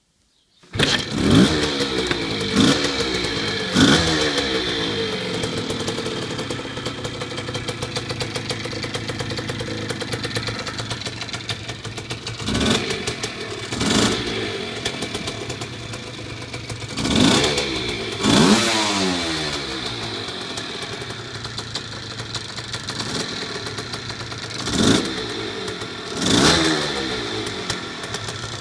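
Puch motorcycle's two-stroke engine idling and being revved in short throttle blips, the pitch rising and falling back each time. It cuts in suddenly under a second in, and is blipped three times in quick succession, then in pairs about a second and a half apart several times.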